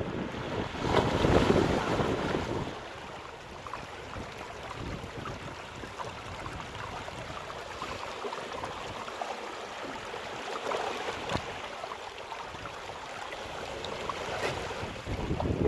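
Sea waves at high tide breaking on the shore: a wave crashes about a second in, then the water washes and hisses steadily before the next swell builds near the end. Wind rumbles on the microphone.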